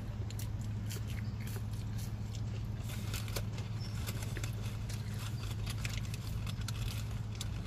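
Steady low hum inside a parked car, with frequent small clicks and crackles from chewing fries and handling their paper packaging.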